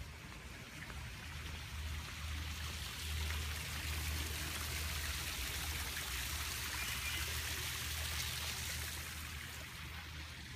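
Small garden waterfall splashing over rocks into a koi pond: a steady rush of falling water that grows louder, holds, then fades near the end. A steady low rumble runs underneath.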